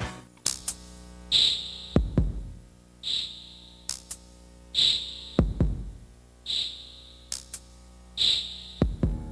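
Music with a slow, sparse electronic drum-machine beat: a deep kick about every three and a half seconds and a sharp snare-like hit about every second and a half, with faint synth tones between.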